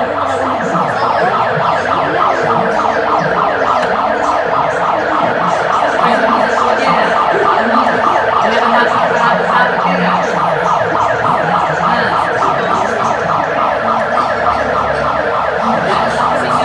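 Electronic alarm siren sounding continuously with a fast, even warble, the signal for an earthquake drill.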